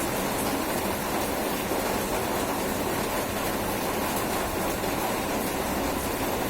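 Steady rain, an even rushing noise that holds at one level throughout.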